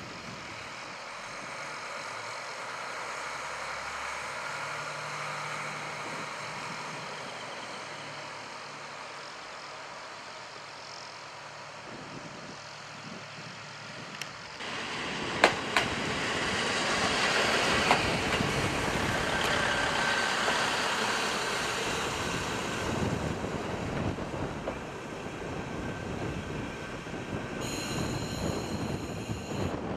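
KiHa 40 diesel railcar running on the line: its diesel engine and the rumble of its wheels on the rails. Partway through it gets much louder, with a couple of sharp clicks from the wheels.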